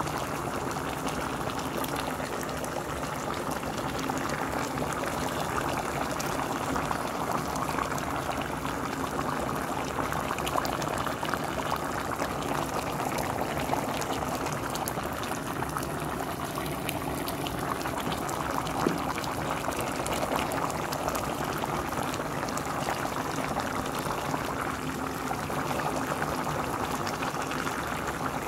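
Pot of green beans, potatoes and ham hock boiling in broth: a steady bubbling with many small pops.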